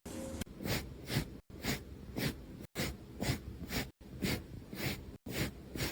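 Rhythmic, noisy breaths or snorts, about two a second, from an animal breathing hard.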